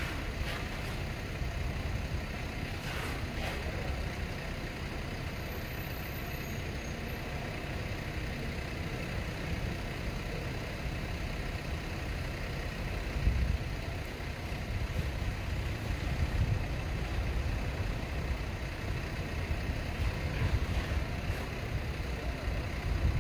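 Steady low rumble of outdoor city ambience, with a few faint knocks near the start and brief swells in level later on.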